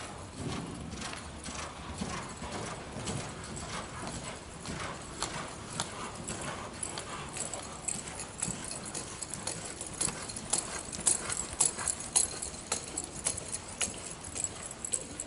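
Hoofbeats of a palomino Quarter Horse mare loping on soft arena dirt, a continuous run of muffled beats that grow sharper and louder about two-thirds of the way through.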